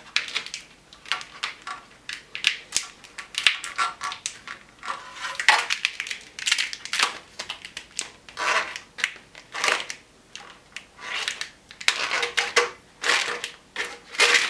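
Plastic wire loom tubing crackling and rattling in irregular bursts as a bundle of harness wires is worked into it.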